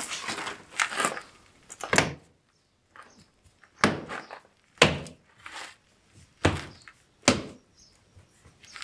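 Toyota Highlander rear door trim panel being pressed home by hand, its plastic retaining clips snapping into the door with about five sharp thunks spread over several seconds.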